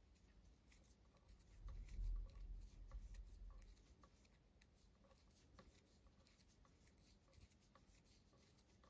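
Faint, soft ticks and rustles of metal knitting needles and thin yarn as plain stitches are knitted, with a low rumble from about one and a half to four seconds in.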